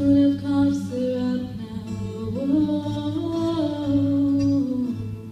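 The closing bars of a live acoustic song: a singer holds long wordless notes that slide from one pitch to the next over a steady guitar accompaniment. Everything dies away near the end.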